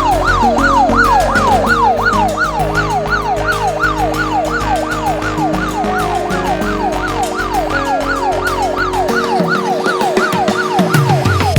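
Smartphone anti-theft alarm app sounding its siren through the phone's speaker: a loud, fast repeating falling whoop, about three sweeps a second, over background music.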